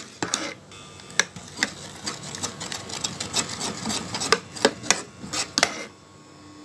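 Metal spoon stirring thick, just-cooked custard in a metal pan, scraping and clinking against the pan in an uneven run of clicks, about two a second, that stops about six seconds in.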